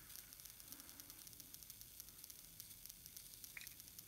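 Near silence: faint steady hiss of room tone, with a faint tick about three and a half seconds in.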